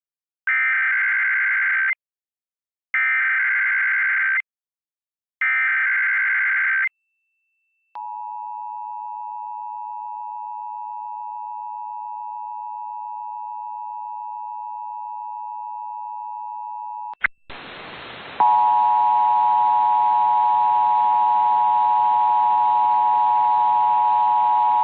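Emergency Alert System test signal: three identical bursts of screeching SAME header data tones, then a steady two-tone attention signal for about nine seconds. A click and a short rush of static follow, then a second, louder attention tone over hiss.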